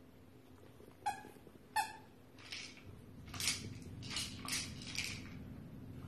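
A Shiba Inu playing with a toy on a rug: two short, sharp ringing clicks a little over a second in, then a string of soft scuffling noises about twice a second.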